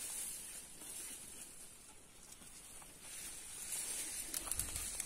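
Faint rustling and scraping as a freshly pulled cassava plant's stems and root clump are handled in dry soil, with a few soft knocks about four seconds in.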